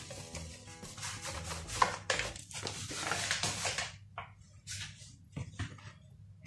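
Hands sprinkling flour onto sticky Nutella cookie dough and kneading it in a plastic bowl: soft rustling and patting strokes. Background music fades out a couple of seconds in.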